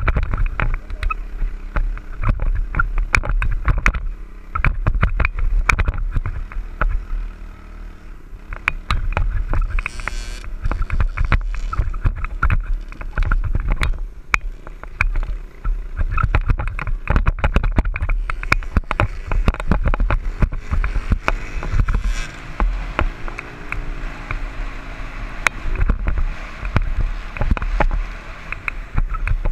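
Dirt bike engine running under way, heard through heavy wind buffeting on a helmet-mounted microphone, the engine note rising and falling with the throttle.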